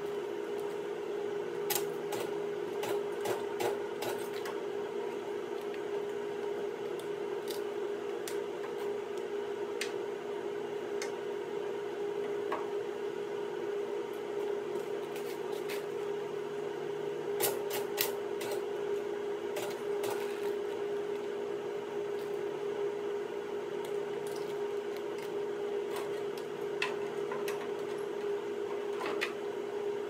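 Arc welding on steel: a steady electrical hum with scattered sharp crackles and clicks, bunched in short runs.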